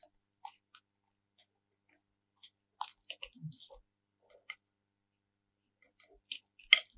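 Slime being handled close to the microphone, giving scattered wet, sticky clicks and crackles with quiet gaps between them. They come in a cluster about three seconds in and again near the end.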